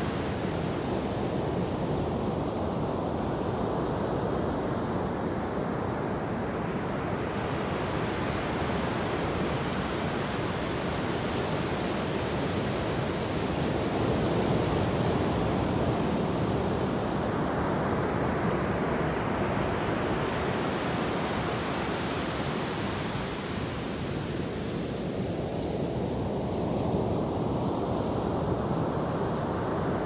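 Ocean surf washing onto a sandy beach: a steady rushing hiss of breaking waves. The sound swells twice, brightening as a wave runs up the sand, about a third of the way in and again near the end.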